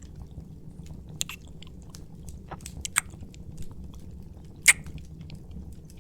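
Close-up wet kissing and mouth sounds: scattered soft lip smacks and clicks, the sharpest one a little before five seconds in, over a steady low hum.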